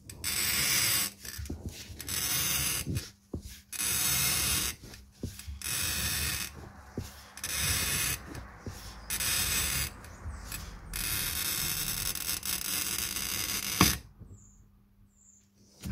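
Glass bottle being rolled against the cutting wheel of a bottle-cutting jig to score it: a dry, scratchy rasp in repeated bursts of about a second each as the hands turn the bottle, with a sharp click near the end.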